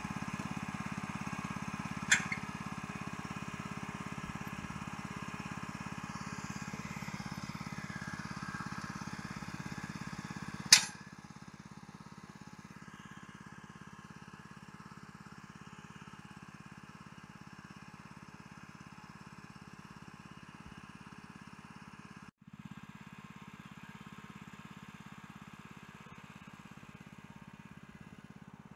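Log splitter's small engine running steadily, with a sharp clank about two seconds in and a louder crack near the middle, after which the engine sounds quieter.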